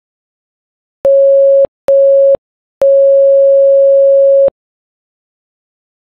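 Morse code beeps in one steady mid-pitched tone: two short beeps and then one long one, dot-dot-dash, the letter U in 'Pittsburgh'.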